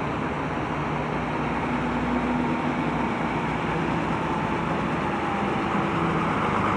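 Steady vehicle engine and road noise with a faint hum whose pitch slides slowly down.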